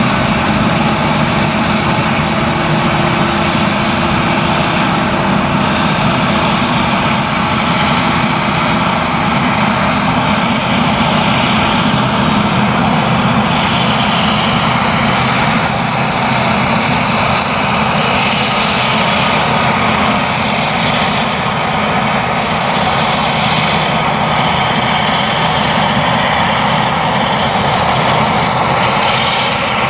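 Claas Jaguar 970 forage harvester's V8 engine and chopper running while chopping sorghum, a steady heavy drone with a hiss that swells now and then, together with the tractor pulling the trailer alongside.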